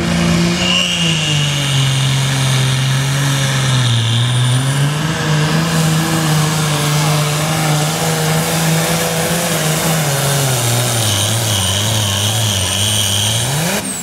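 Ford pro farm pulling tractor's diesel engine at full throttle, dragging the weight-transfer sled down the pull track, with a high whine above it. The engine note sags as the load builds over the first few seconds, holds, sags again later, then climbs sharply near the end.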